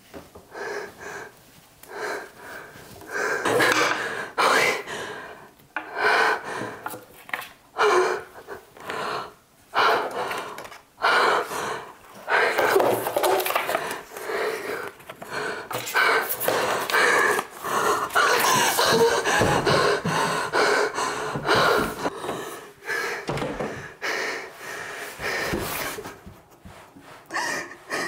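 A woman breathing hard in distress, panting and gasping in irregular bursts.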